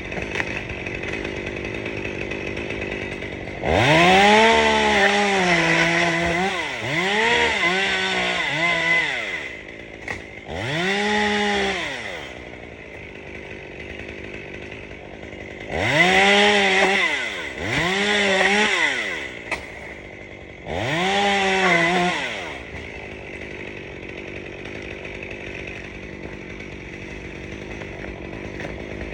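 Gas chainsaw idling and revved to full throttle in about six bursts of one to three seconds each, the pitch rising sharply, holding, then dropping back to idle as the throttle is released. These are the cutting bursts of trimming palm fronds.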